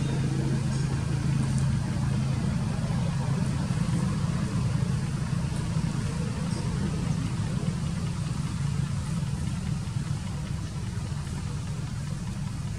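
An engine idling steadily: a continuous low rumble with no changes in pitch.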